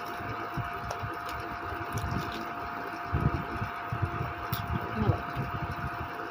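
Steady indoor background hum with one constant tone running under it. About halfway through comes a run of soft, irregular low knocks and bumps.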